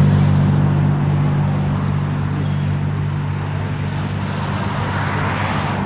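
An engine running at a steady speed, a constant low hum under a wash of noise that eases off slightly over the seconds.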